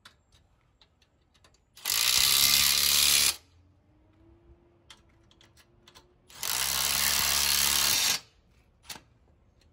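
Milwaukee M18 cordless drill with a socket adapter driving masonry lag bolts through a steel wall-mount bracket into brick. It runs in two bursts of about a second and a half each, with small handling clicks between them.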